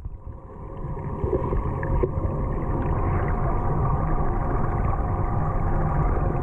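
Underwater ambience picked up by a camera submerged in a swimming pool: a steady low rumble with a faint hum of several held tones and a few small bubbly blips, swelling over the first two seconds and then holding steady.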